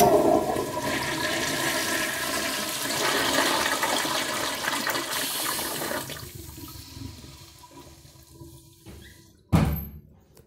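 American Standard toilet flushing: a loud rush of water starts suddenly, runs for about six seconds, then dies away to a trickle. A sharp thump comes near the end.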